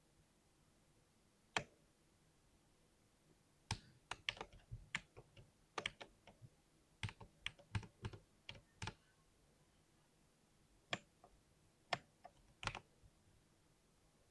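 Typing on a compact 60% keyboard, with soft clicky keystrokes. A single keystroke comes first, then a quick run of typing for about five seconds, a pause, and a few scattered keystrokes near the end.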